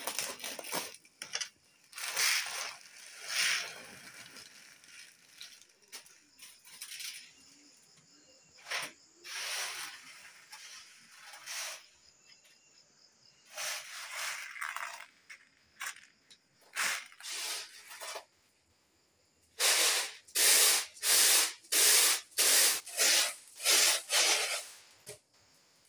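Dry red lentils (masoor dal) rustling on a woven bamboo tray as they are spread and picked over by hand. Near the end comes a fast run of loud swishes, about two a second, as the tray is tossed to winnow them.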